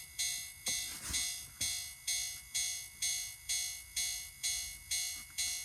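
Toy railway-crossing keychain strap sounding a Japanese level-crossing warning bell: an electronic ding repeating about twice a second, each strike dying away quickly.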